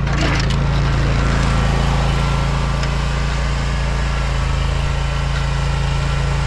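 John Deere Z530R zero-turn mower's engine running at a steady speed, with a constant hiss of noise over it and a brief rush of noise at the very start.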